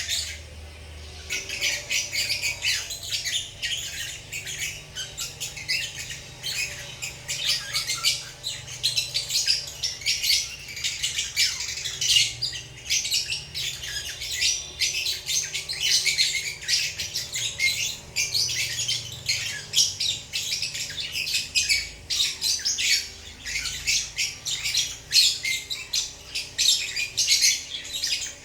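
Several lovebirds chirping and squawking continuously in quick, overlapping high-pitched calls.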